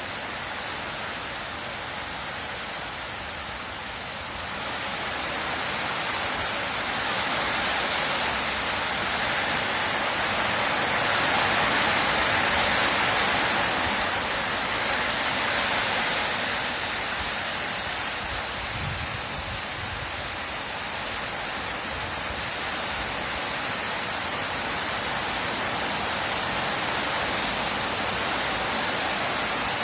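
Heavy rain pouring steadily in a continuous hiss, swelling louder a few seconds in and easing slightly after the middle.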